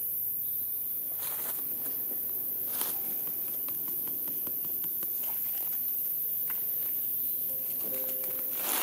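Dry leaf litter and twigs rustling and crackling, with many small sharp snaps, as a hand works among them at ground level.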